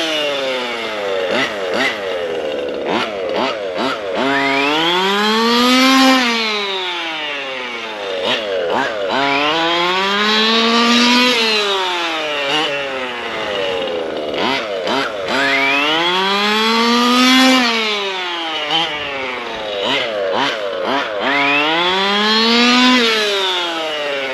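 ESP 30.5cc two-stroke race engine in a Losi 5ive-T 2.0 large-scale RC truck, revving up to about half throttle and then backing off to coast, four times over, with the pitch rising and falling each time. This is the pattern used to run in a new engine.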